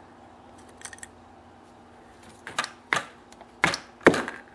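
Small metal parts being handled: faint clicks about a second in, then four sharp knocks and clatters in the last two seconds, the last the loudest. The clicks come from a screwdriver working the small jets out of a Kawasaki FC420V engine's carburetor, and the knocks from the aluminium carburetor body being turned over and set down on the bench.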